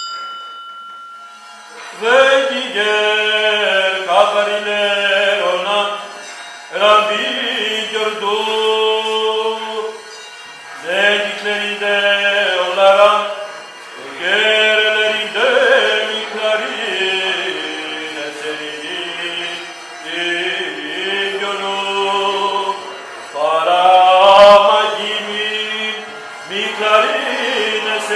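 An Orthodox priest chanting the Gospel reading in liturgical recitative, a single voice in melodic phrases broken by short pauses.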